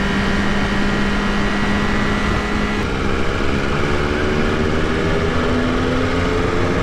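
Sport motorcycle engine under way with wind rush on the microphone. The engine note holds steady, then changes about three seconds in and climbs slowly as the bike accelerates.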